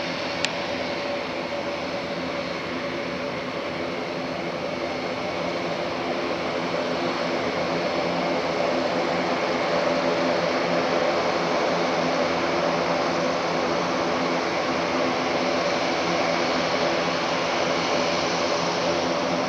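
Airbus A400M's four TP400-D6 turboprop engines running as the aircraft taxis, a steady propeller drone with several even tones over a hiss. It grows louder as the aircraft turns towards the listener. A brief sharp click sounds about half a second in.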